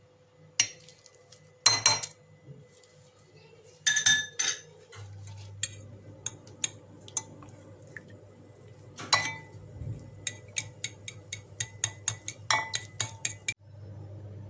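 Metal utensils clinking and tapping against kitchen dishes: a few sharp, ringing clinks, then a quick run of light taps near the end, over a low steady hum.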